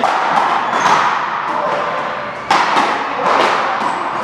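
Irregular sharp knocks and thuds, several a second at times, each with a short echo as in a large hall, over a background murmur of voices.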